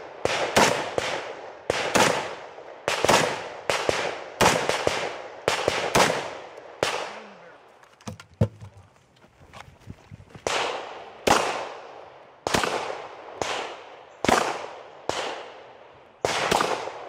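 Gunshots fired in quick strings, about two dozen in all, each with a ringing tail, broken by a pause of a few seconds near the middle.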